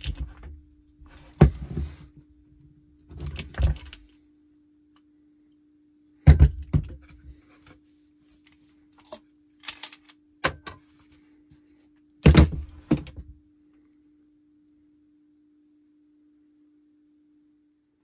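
Handheld hydraulic lug crimper being worked on a 6-gauge copper cable lug: a handful of short metal clunks and clicks over the first thirteen seconds or so, then only a faint steady hum.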